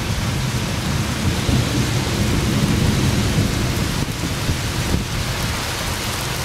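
Steady heavy rain with a long, low rumble of rolling thunder that builds about half a second in and dies away after about four seconds.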